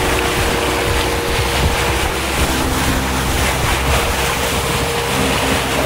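Motorboat engine running at speed, with water rushing past the hull and wind buffeting the microphone.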